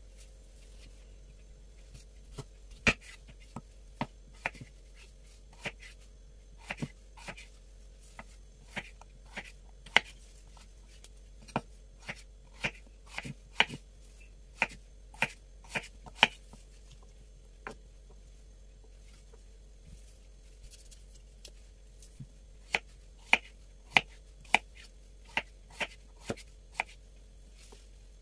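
Knife chopping on a cutting board: irregular sharp knocks, some in quick runs, with a pause of a few seconds about two-thirds of the way through.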